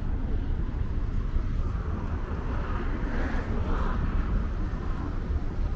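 Wind rumbling on the microphone over street traffic noise, with a passing vehicle swelling and fading around the middle.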